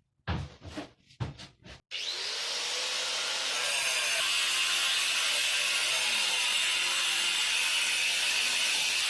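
Angle grinder cutting a wiring chase into a reinforced-concrete wall: it starts about two seconds in, builds up over a second or so, then grinds steadily.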